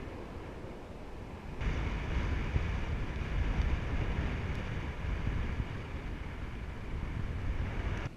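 Airflow buffeting an action camera's microphone in paraglider flight: a steady rush of wind noise, heaviest in the low end, that jumps louder about a second and a half in.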